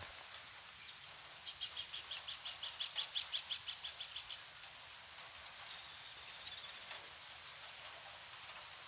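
Songbird singing: one high note, then a rapid series of about twenty clear notes, roughly seven a second, that swell and then fade, followed later by a high buzzy trill. Steady outdoor hiss underneath.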